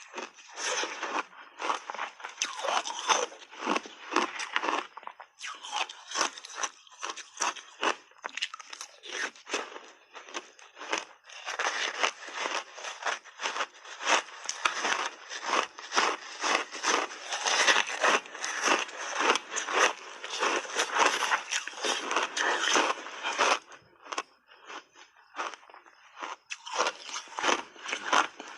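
Block ice being bitten and chewed close to the microphone: rapid, continuous crunching and cracking, easing off for a few seconds near the end before picking up again.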